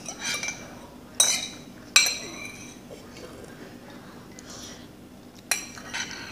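Metal forks clinking and scraping against a ceramic plate. Two sharp clinks with a brief high ring come a little after one second and about two seconds in, and another comes about five and a half seconds in.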